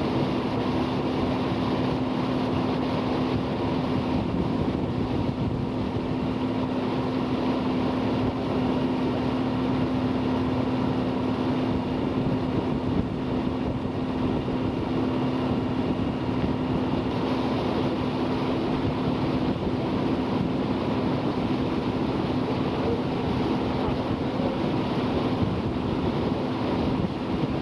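Tour boat's engine running steadily under way, a constant low hum over a continuous rush of wind and water noise on the microphone.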